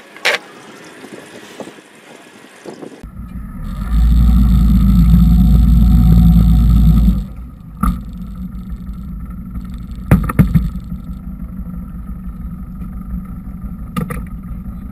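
Motorboat under way, its engine running steadily. About three seconds in, a very loud low rumble of wind on the microphone comes in for a few seconds, and a few sharp knocks follow later.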